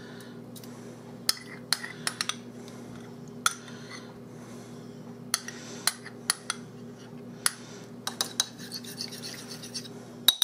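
A teaspoon clinking and scraping against a bowl in scattered light taps, knocking Dijon mustard and minced garlic off into salad dressing, over a steady low hum.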